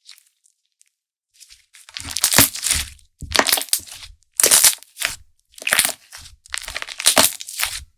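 Handmade slime being squeezed and pressed by hand, crackling and crunching in about five squeezes roughly a second apart, starting about two seconds in.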